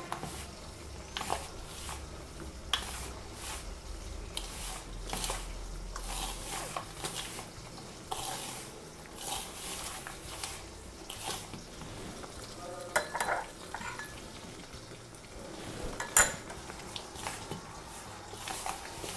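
Hands mixing and pressing a crumbly ragi flour and ghee laddu mixture in a stainless steel bowl: irregular scraping and rustling, with fingers knocking against the metal bowl now and then. A few sharper knocks come in the second half.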